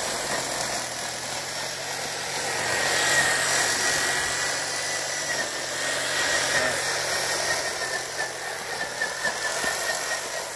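Corded electric drill running steadily as the motor of a homemade string trimmer, a steady high whine from the spinning drive.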